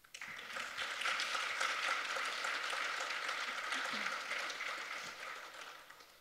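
Audience applauding, breaking out suddenly at the end of a piece, holding steady, then dying away near the end.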